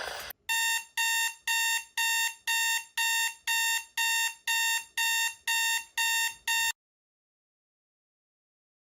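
Electronic emergency-alert beeper sounding about two beeps a second, thirteen beeps in all, each a shrill buzzing tone, then cutting off abruptly.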